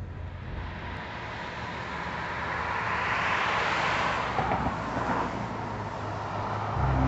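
A car passing by: tyre and road noise swells to a peak about four seconds in, then fades. Near the end a loud low steady hum starts.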